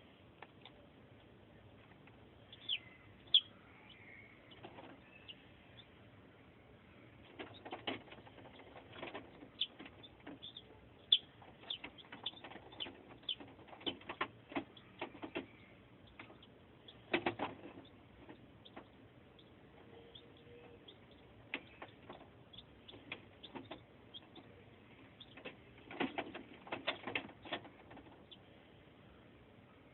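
Newly hatched chicks peeping in short, high chirps, in bunches with pauses between. Scattered small clicks and scuffs run through them.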